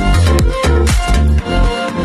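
Electronic background music with a steady beat.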